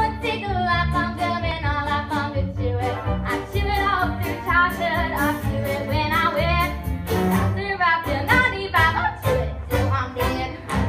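A girl singing a musical-theatre song with instrumental accompaniment.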